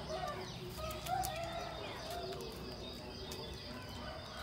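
Several birds calling at once outdoors: lower calls mixed with short, higher chirps, the loudest about a second in.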